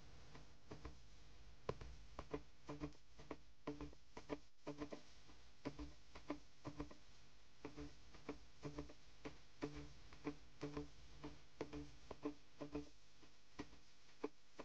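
Footsteps crunching over rocks and cobbles, with an ice-fishing gear sled knocking and scraping over the stones as it is dragged on a rope: faint, uneven knocks about one to two a second.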